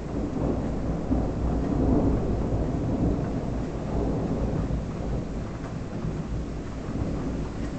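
Thunder rolling: a low rumble that swells about half a second in, peaks around two seconds, then slowly dies down.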